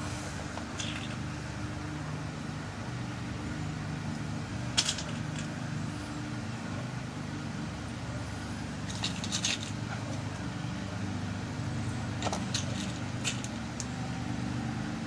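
Small, sharp metal clicks as new pin-tumbler pins are loaded into a lock cylinder during rekeying: a single click, then a quick cluster about nine seconds in, then a few more near the end. A steady low hum runs underneath.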